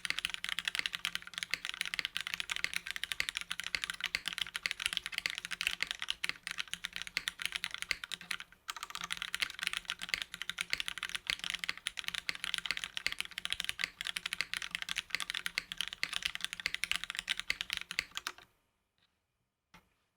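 Fast, continuous typing on a mechanical keyboard with linear Cherry MX Black (Hyperglide) switches in an aluminium plate and GMK doubleshot ABS keycaps. It has a brief pause about eight and a half seconds in, and the typing stops shortly before the end, leaving a couple of faint clicks.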